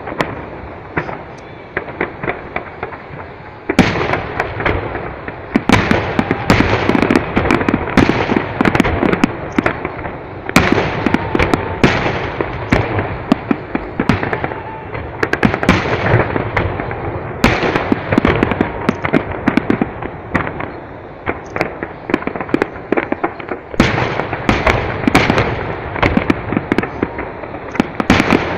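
Large aerial firework shells bursting in quick succession, a loud bang about every one to two seconds with rapid crackling between the booms.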